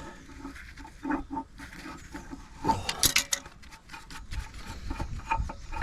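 Scattered clicks and knocks of something being handled, with a burst of sharp clicks about three seconds in.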